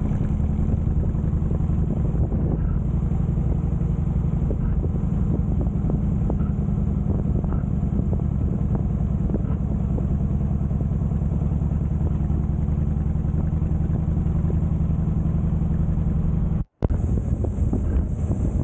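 Harley-Davidson Heritage Softail Classic's V-twin engine running steadily while riding, with a brief break near the end.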